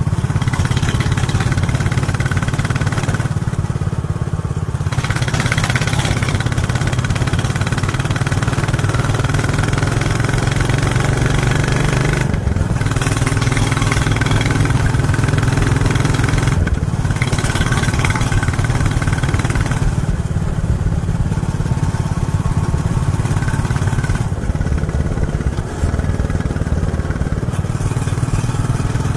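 2023 Royal Enfield Bullet 350's 349 cc single-cylinder engine thumping through its stock exhaust while riding along at a steady pace. The note eases briefly a few times.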